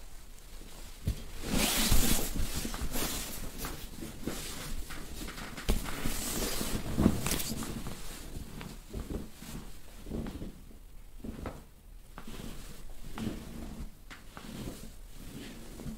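Cloth rustling and rubbing as a dry massage presses and kneads over clothing on a padded mat, in irregular bursts, loudest about two seconds in and again around six to seven seconds.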